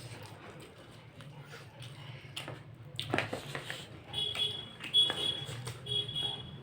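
Eating sounds, with sharp clicks and crunches about three seconds in, while a high electronic beep sounds in three stretches through the second half.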